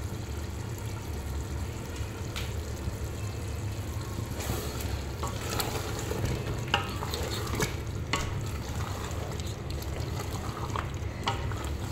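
Wooden spoon stirring thick mutton korma gravy in a large aluminium pot, scraping round the pot with scattered clicks and knocks of the spoon against the metal, over the low sizzle of the gravy cooking down.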